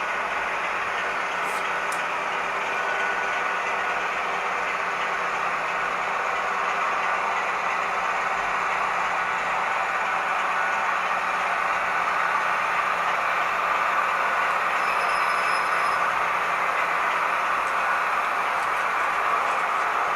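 Model diesel train with a DCC sound decoder running on the layout: a steady running sound from its small speaker and wheels on the track, slowly getting louder.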